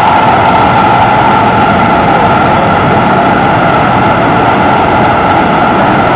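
Singapore MRT train running at speed, heard inside the carriage: a loud, steady rumble of the running train with a steady high-pitched whine over it.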